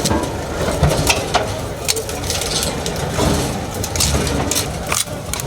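Road roller running over seized motorcycle silencers: its engine rumbles low and steady while the metal exhaust pipes crunch and crack repeatedly under the drum.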